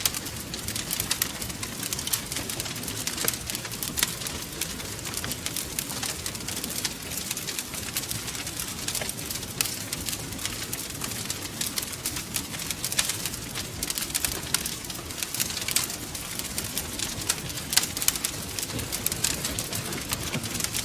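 Wood fire crackling: a steady stream of sharp snaps and pops over a low, even rush of burning, with a few louder pops about thirteen and eighteen seconds in.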